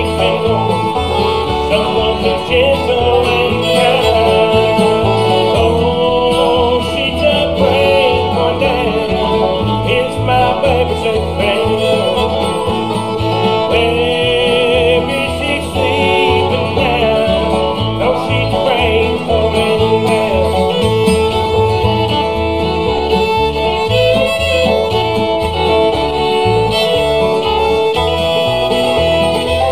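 Bluegrass band playing an instrumental break with no singing: fiddle and banjo over strummed acoustic guitar, with bass notes keeping a steady beat.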